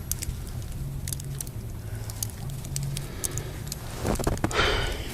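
Melting wet snow dripping and crackling: scattered faint, irregular ticks of falling meltwater over a low steady hum, with a louder scuffing noise near the end.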